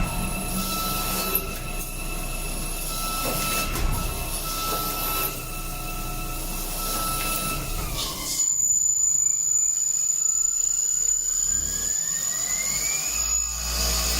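CNC machine running with a steady electric whine from its spindle and drives. About 8 seconds in the pitch drops, and a new whine climbs steadily from about 10 to 13 seconds, as the motor speeds up again.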